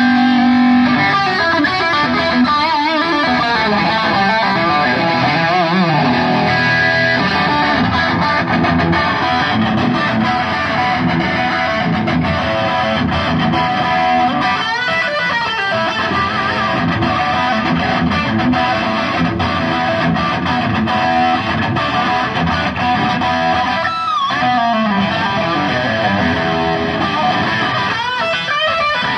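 Electric guitar playing through effects, with notes bent and slid in pitch several times.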